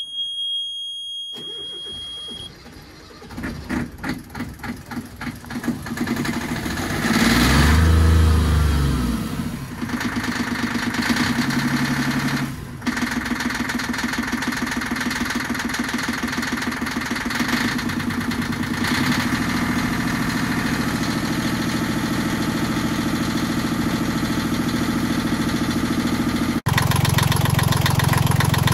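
Yanmar 3GM30F three-cylinder marine diesel cold-starting. A steady warning buzzer sounds for about two seconds after the key is turned. The starter then cranks the engine for a few seconds, and it catches with a loud surge about 7 seconds in and keeps running steadily at about two-thirds throttle. The start is easier than this engine's usual cold start, after the cylinders were pre-lubricated by spinning it on the starter with the compression levers open.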